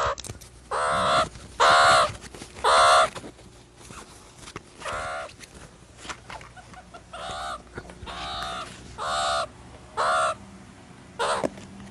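Meerkat calling repeatedly: about ten short calls, each under half a second, at uneven gaps.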